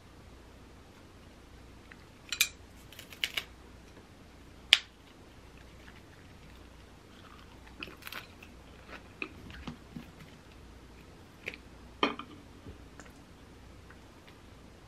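Close-up eating sounds: biting and chewing a lettuce wrap of spicy stir-fried baby octopus. It comes as a scatter of short, crisp crunches and clicks, the loudest about five seconds in.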